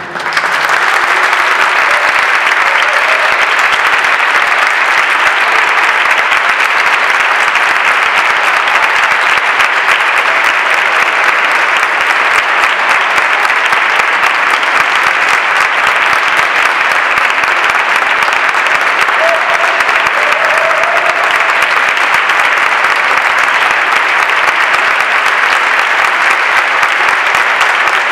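A concert audience applauding steadily as soon as the wind band's piece ends.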